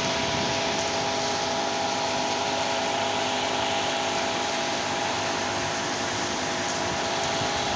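Heavy rain pouring down in strong wind: a steady, even rushing noise that does not let up, with a faint steady hum underneath.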